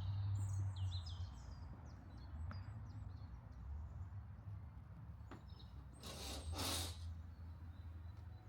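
Outdoor ambience: small birds chirping in quick rising and falling notes for about the first second and a half, over a steady low rumble. About six seconds in come two short hissing swishes in quick succession.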